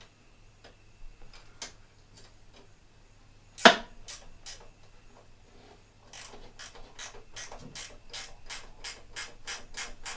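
Socket ratchet clicking in a steady run of about four clicks a second as a 10 mm bolt holding the mini lathe to its table is turned out. A few scattered clicks and one loud sharp clack come a few seconds before the run.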